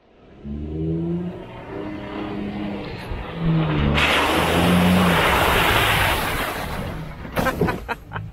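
A 4x4's engine revving hard as it drives fast through a mud pit, its pitch rising and falling, then about four seconds in a loud rush of muddy water splashing over the truck for a couple of seconds.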